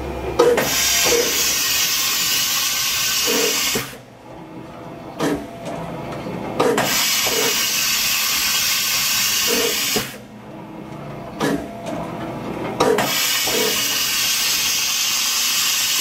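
Fadal 4020HT vertical machining center cycling its carousel tool changer: three long blasts of compressed-air hiss, each about three seconds and roughly six seconds apart, with clunks of the mechanism before and between them.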